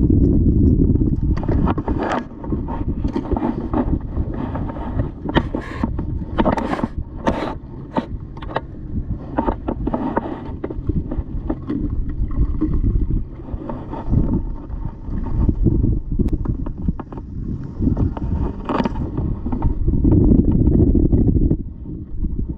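Wind buffeting the microphone on a kayak out on open water, a steady low rumble, with a run of scattered sharp clicks and knocks from about five to eleven seconds in.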